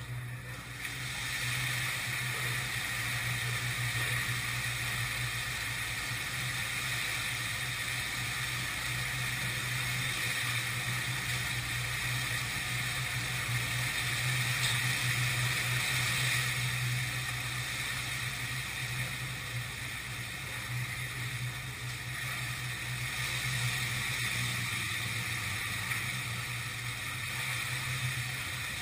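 A turkey fryer fire burning on a wooden porch: a steady rushing noise that swells about a second in and holds, with a constant low hum beneath it.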